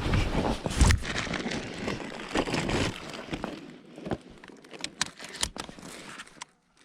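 Rustling and crunching of people moving through a field, clothing and crop stubble, with heavy thumps in the first second and a few sharp clicks in the second half.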